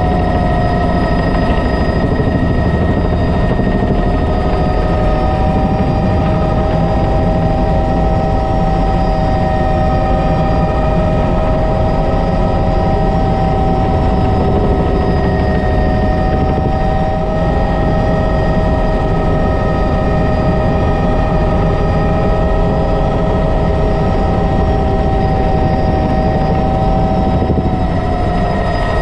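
Bell 206 JetRanger helicopter heard from inside the cockpit in flight: its Allison 250 turboshaft engine and rotors make a steady loud rumble under a turbine whine of several high tones, and the main tone wavers slightly in pitch now and then.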